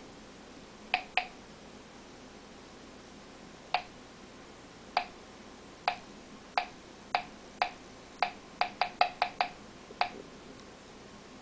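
Home-built Geiger counter clicking at random, irregular intervals, about fifteen sharp clicks in all, with a quick cluster near the end. Each click is a count of radiation from the americium-241 source in a smoke detector's ionization chamber.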